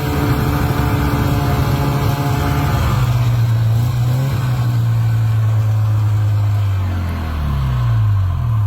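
Snowmobile engine running under way, its note dropping about three seconds in, holding steady, then falling and rising again near the end as the throttle is eased off and opened.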